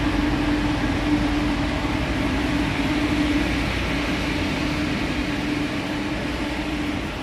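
Steady hum of container-ship machinery or ventilation fans: one constant tone over an even hiss.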